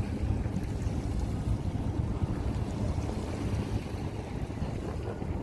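Wind buffeting the camera's microphone on an open beach, a steady, uneven low rumble.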